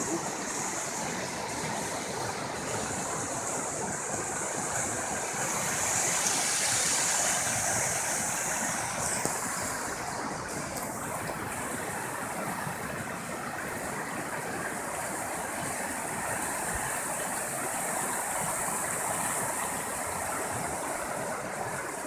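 Shallow river rapids rushing over rocks: a steady wash of moving water.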